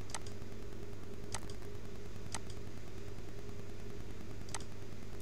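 Four short, sharp computer mouse clicks a second or two apart, over a steady low hum.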